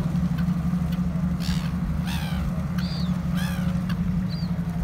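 A boat engine running with a steady low drone, while gulls call over it about five times in short, falling cries.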